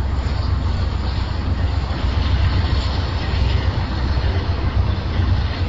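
Steady low rumble of a CN freight train of tank cars rolling past, mixed with heavy weather noise on the microphone.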